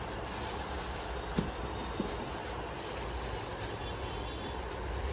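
Steady low background rumble of room ambience, with a couple of soft short knocks a little after a second in and at about two seconds, as a sneaker is pulled on and handled.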